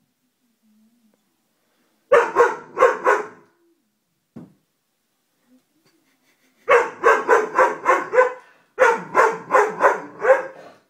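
Doberman pinscher barking: a short burst of barks about two seconds in, then quick runs of barks, about four a second, from around seven seconds on.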